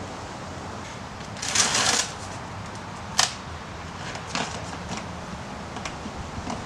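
Handling noises while getting ready to fuel the chainsaw: a brief rustling scrape about a second and a half in, a sharp click a little after three seconds, then a few lighter clicks.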